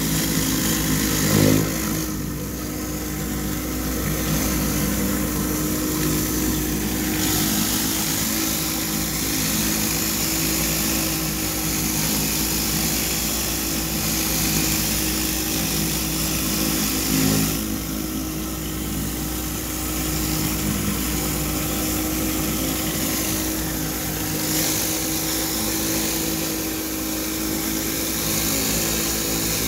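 Hot-water pressure washer at 4,000 PSI running steadily: an engine-driven pump's drone under the hiss of a flat rotary surface cleaner spraying over concrete. The hiss rises and falls as the cleaner is moved. There are brief louder knocks about a second and a half in and again about halfway through.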